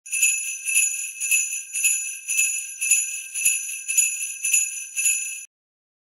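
Sleigh bells shaken in a steady rhythm, a jingle about every half second, ten in all, cutting off suddenly near the end.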